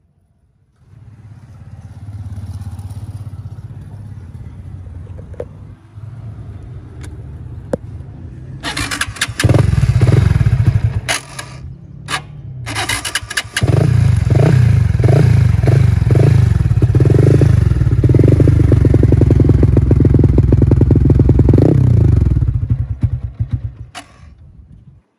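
Yamaha Exciter's single-cylinder four-stroke motorcycle engine idling, then revved hard: a couple of loud revs about ten seconds in, then a long run of rapid throttle blips from about fourteen seconds, dropping back near the end.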